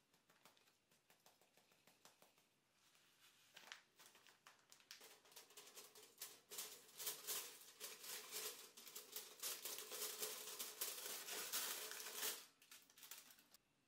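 Faint crinkling of a plastic packet being handled and shaken, then from about five seconds in, louder, dense crackling crinkles of aluminium foil being peeled back off a rice cooker pot, which stop abruptly near the end.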